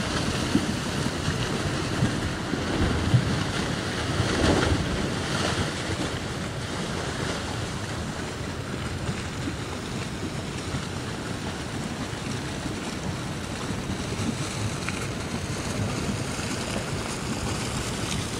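Steady rushing of a wide, muddy flash-flood torrent, with wind buffeting the microphone.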